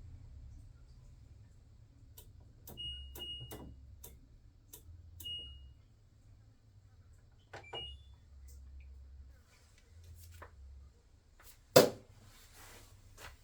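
Buttons pressed on an LG washing machine's control panel while setting it to start: a string of clicks, several with a short high beep. Near the end comes a single loud knock, the loudest sound.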